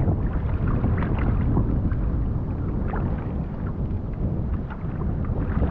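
Wind buffeting the microphone in a steady low rumble, with scattered faint ticks over it.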